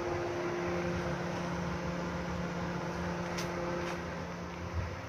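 VW Parati sitting with its engine running, a steady hum with two faint clicks a little past halfway.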